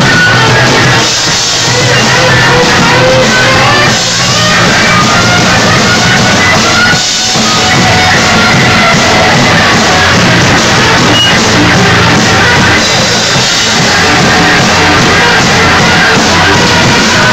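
Live rock band playing loud: drum kit, electric guitar and shouted vocals.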